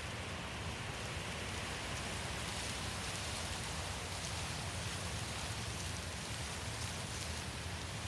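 Steady wind: a constant low rumble under an even hiss, with no distinct gusts.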